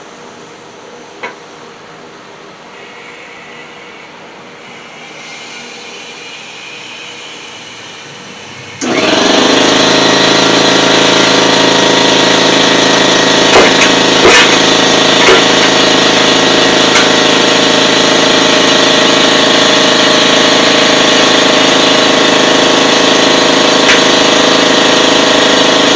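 An air compressor motor kicks on suddenly about nine seconds in and runs loudly and steadily, feeding the air line to a pneumatic bellows jack. Before it, only a faint, slowly rising hiss; a few short knocks sound a few seconds after the compressor starts.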